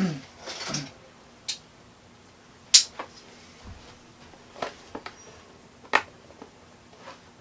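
Cardboard box being cut and pried open with a knife: a brief scrape of the blade on the cardboard at the start, then a series of separate sharp clicks and taps from the knife tip and box flap, the loudest about three seconds in.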